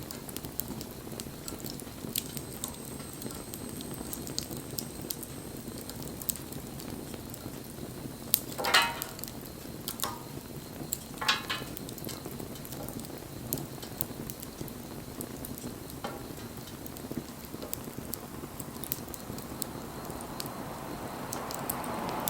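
Wood campfire burning, with many sharp crackles and pops over a steady hiss. Two louder crackles come about 9 and 11 seconds in.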